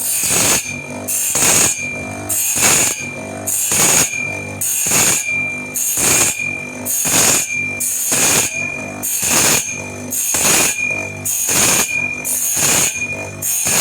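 Background music with a steady beat, a bit under two hits a second, with bright, tambourine-like hits on each beat.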